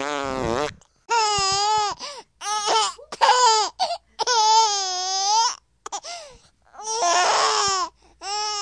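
Beagle howling and whining in a string of about eight wavering, high cries, each under a second to just over a second long, the longest near the middle.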